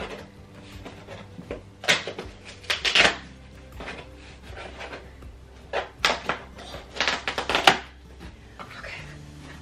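Cardboard shipping box being pulled and torn open by hand: bursts of scraping, ripping cardboard, loudest about two to three seconds in and again from about six to eight seconds in. Faint background music with held tones underneath.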